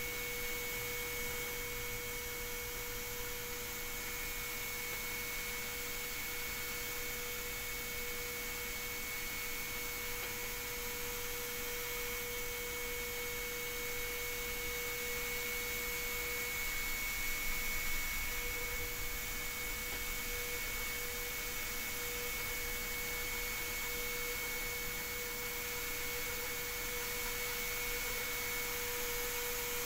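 Kress 800 FME router spindle running at speed with a steady whine as a small bit cuts a finishing pass around a carved letter, the CNC's motors moving it along.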